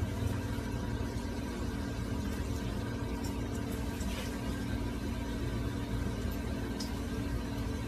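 Steady low hum and rumble of an unseen machine or appliance, unchanging throughout, with a few faint clicks.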